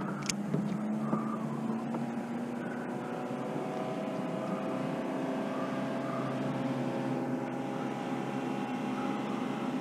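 Boat motor running steadily, its pitch rising slowly, with a single sharp click just after the start.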